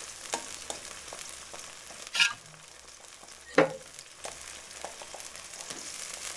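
A metal spoon stirring and knocking against a stainless steel pot of vegetables in stock, over a steady sizzling hiss from the pot. There are sharp clanks about two and three and a half seconds in, the second the loudest.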